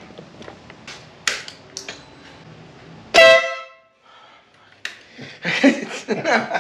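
Denali Sound Bomb Split dual-tone electric horn on a motorcycle giving one short, loud blast about three seconds in, after a few light clicks, way louder than a factory horn.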